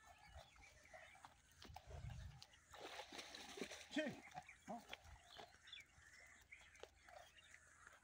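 Water buffalo grazing close by: faint tearing and crunching of grass, busiest about three to five seconds in.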